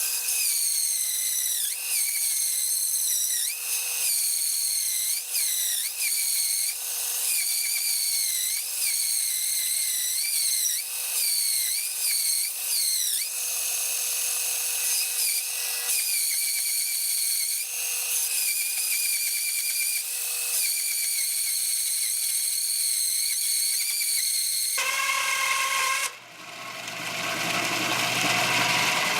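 Shop-built band saw, driven by a 1/3 HP washing-machine motor, resawing an oak board: a high whine whose pitch dips and recovers every second or two as the wood is fed through the blade. Near the end the sound changes abruptly to a lower, steadier hum, with a brief drop in level.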